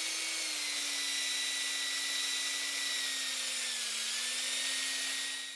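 Power drill running steadily at speed, spinning a homemade threaded-rod paint mixer with a sheet-metal propeller. Its whine sags slightly in pitch about four seconds in, then recovers, and winds down at the end.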